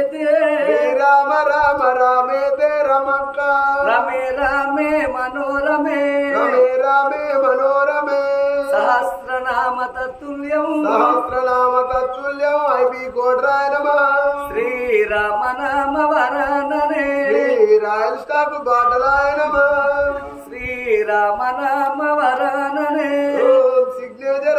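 Oggu Katha folk singing: voices chanting a song in long held notes that waver and slide between pitches.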